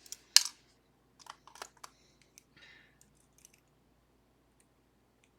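Small metal clicks and taps of a disassembled pin-tumbler lock's parts being handled: a gin spool pin and the plug knocking together, with the sharpest click about half a second in, a quick run of clicks a second later and a brief soft rustle, then only faint ticks.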